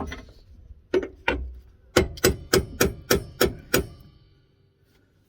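Hammer tapping on a car's front anti-roll-bar drop link, to drive its threaded stud through and expose more thread for the nut. A few spaced taps, then a quick run of seven at about three a second, stopping about four seconds in.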